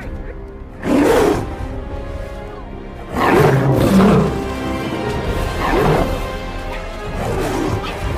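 Film-soundtrack lion roaring and snarling in four bursts over dramatic orchestral music: the longest burst comes about three seconds in, and shorter ones follow near the end.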